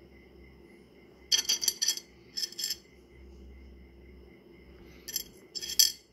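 Pieces of rough opal clinking and clattering against each other as stones are put back into and picked out of a pile of opal rough, in a few short bursts of sharp clicks, the loudest near the end.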